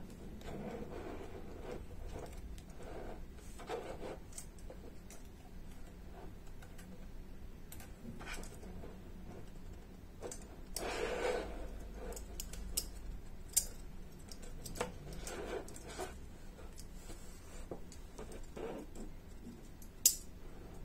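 Jointed metal legs of an assembled 3D metal puzzle spider model clicking, clinking and rubbing as they are moved by hand. The handling is louder about halfway through, and there are two sharp clicks later on.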